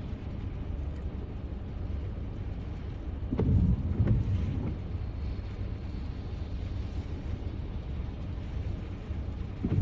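Steady low rumble inside a car waiting at a red light with its engine idling. A louder low sound swells for about a second, three and a half seconds in.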